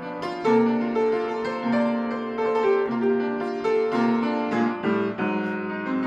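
Solo acoustic upright piano playing a slow jazz ballad: sustained chords under a melody line, with new notes struck every half second or so.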